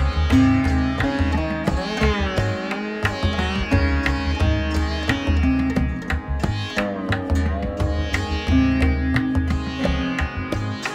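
Instrumental background music: a plucked string melody whose notes bend and slide in pitch, over a steady low beat.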